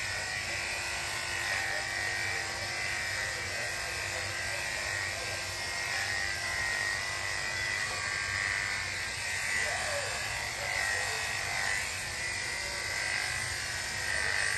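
Corded electric dog grooming clippers running steadily as they trim the fur on a dog's head and face.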